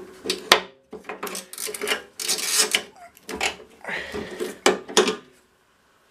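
Steel wrench working a stuck nut on a lawnmower's handle bracket: a quick string of metal clicks, knocks and scrapes as the wrench is turned and reset on the nut, stopping abruptly about five seconds in.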